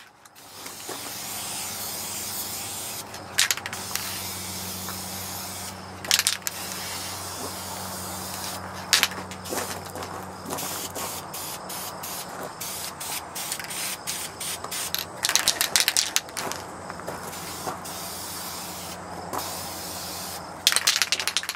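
Aerosol spray paint can hissing steadily as it lays down a base coat, with a few short sharp clicks in between.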